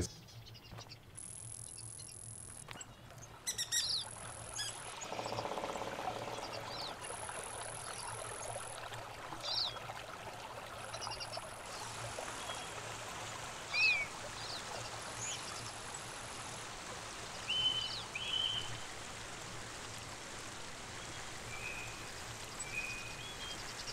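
Mountain stream running over rocks, a steady rush of water that sets in about five seconds in. Short bird chirps sound here and there throughout, and a high insect trill comes and goes in bouts of a second or two during the first half.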